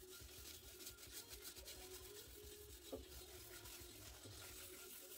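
Faint rubbing of a cloth pad over the surface of a black walnut bowl as shellac is hand-applied, with a light click about three seconds in.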